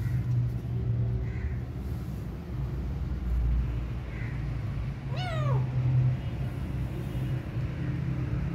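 A kitten meows once about halfway through, a short call that falls in pitch, over a steady low rumble.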